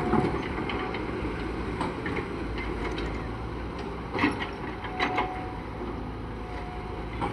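Construction-site work noise: a steady low rumble with scattered sharp knocks, the loudest about four and five seconds in.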